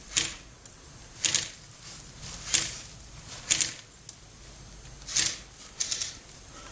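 Airsoft replica guns firing single shots: sharp clacks about once a second, some in quick pairs, with three in quick succession near the end.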